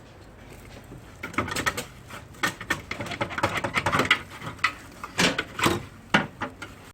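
Irregular clatter of sharp clicks and light knocks in quick succession, starting about a second in and stopping near the end.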